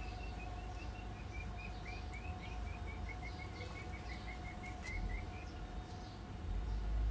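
A small bird calling in a quick run of short, high chirps, about five a second, which stops about five and a half seconds in. Fainter falling calls sound higher up, over a steady faint hum and a low rumble.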